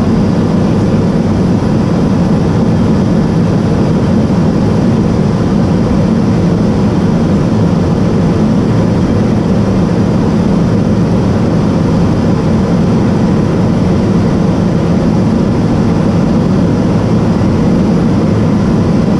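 Steady cabin drone of a Cessna P210 Silver Eagle's Rolls-Royce turboprop engine and propeller in cruise flight, heard from inside the cockpit. A few faint steady high tones run over the drone.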